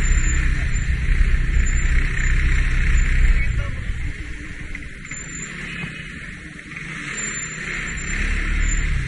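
Motor scooter riding through slow city traffic: its engine and road noise under a low rumble of wind buffeting the microphone, heaviest for the first few seconds and again near the end.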